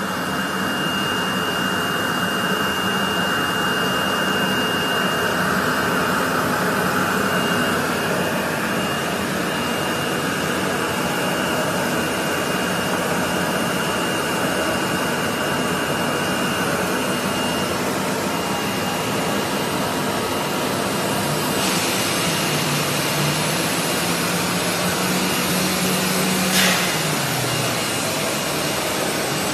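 Vacuum feeder (vacuum conveyor) running, its pneumatic vacuum pump drawing powder up a suction hose with a steady loud rushing and a thin high whistle. A low hum shifts in pitch near the end, and there is one short sharp knock.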